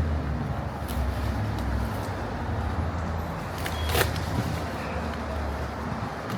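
A vehicle engine idling with a steady low hum, with a few light knocks and a sharper knock about four seconds in.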